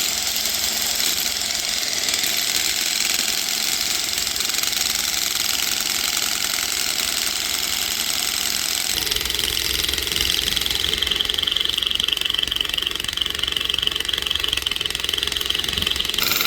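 An engine running steadily; about nine seconds in the sound shifts to a deeper rumble.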